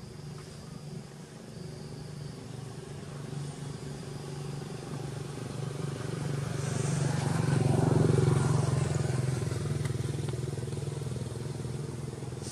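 A motor vehicle's engine passing by: a steady low drone that grows louder to a peak about eight seconds in, then slowly fades.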